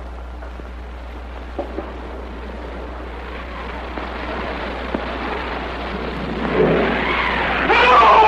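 Faint steady hiss and hum of an old film soundtrack with a few light clicks, then, from about six and a half seconds in, a loud wavering cry of a frightened man that swells near the end.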